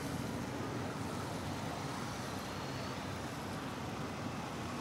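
Steady din of many motorcycle engines running together, an even wash of noise with no single engine standing out.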